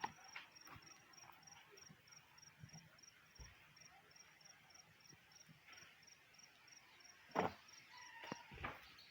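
Faint insect chirping, a high pulse repeating evenly about three times a second, like a cricket. A few sharp knocks come near the end, the loudest about seven seconds in.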